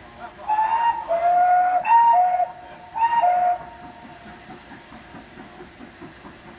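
Steam locomotive whistle blown in three short blasts, each stepping down from a higher note to a lower one. A quieter, regular rhythm of the train running follows.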